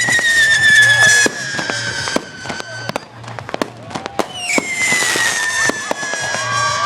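Fireworks going off: two long whistles that slowly fall in pitch, the second starting about four and a half seconds in, over scattered cracks and bangs.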